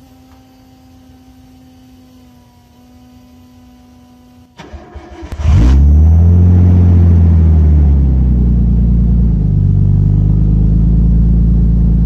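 Nissan RB25DET turbocharged straight-six, after a faint steady hum, cranks for about a second, catches, flares up in revs and settles into a loud, even idle through an exhaust with no silencer fitted. It runs cleanly, its rough running cured by a new power transistor, ignition coils, spark plugs, AAC valve and air flow meter.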